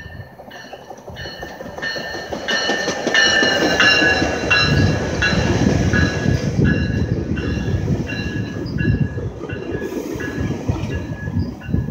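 GO Transit bilevel commuter train passing close by, a low rumble of wheels on rail that swells as the coaches come alongside, with a high ringing sound repeating several times a second throughout.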